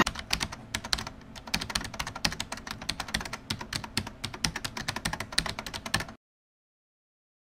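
Typing sound effect: a rapid, uneven run of computer keyboard key clicks that stops abruptly about six seconds in.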